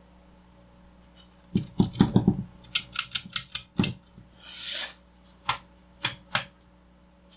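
Sharp clicks and knocks from the controls of a vintage Drake 2-B receiver being worked: a cluster of knocks, a quick run of about half a dozen clicks, a brief hiss, then three single clicks, over a faint steady hum.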